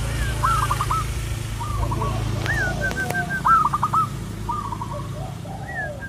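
Zebra dove (perkutut) cooing: short phrases of quick staccato notes repeated about once a second, over a steady low hum, with a couple of sharp clicks about halfway through.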